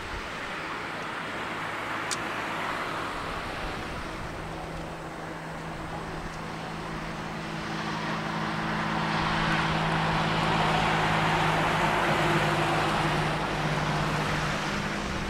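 Distant jet engine noise from airliners taxiing at the airport: a steady rushing hum with low droning tones that swells about eight seconds in and eases slightly near the end.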